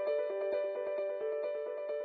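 Instrumental background music with a quick, repeating pattern of notes, slowly getting quieter.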